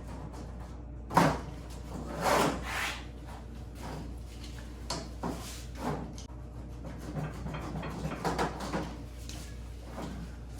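Spline roller pressing rubber spline into the groove of a window screen frame, making a run of short rubbing and scraping sounds as the new mesh is pulled tight. A sharp knock about a second in is the loudest sound.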